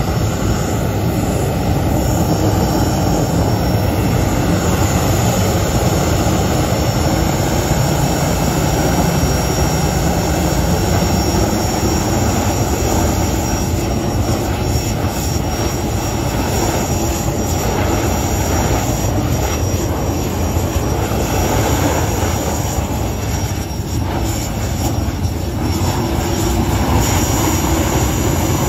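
Small gas-turbine jet engine with afterburner running steadily at low turbine speed: a loud, continuous rush with a thin, steady high whine over it, easing slightly about three-quarters of the way through.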